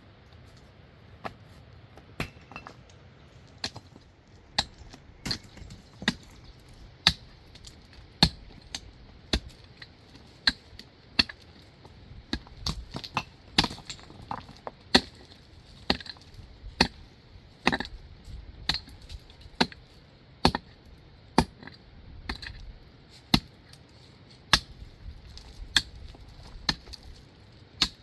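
Hammer striking stone again and again, sharp separate knocks about once or twice a second at an uneven pace, as stones are dressed for a dry stone wall.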